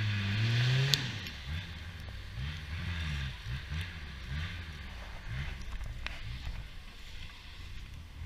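Off-road competition vehicle's engine revving hard, its pitch climbing through the first second, then surging up and down in quick repeated revs about twice a second.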